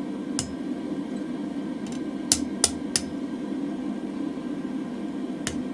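Hammer blows on a hot mild steel drift on an anvil: a single strike, then three quick strikes about a third of a second apart, then one more near the end, each with a short metallic ring. A steady low hum runs underneath.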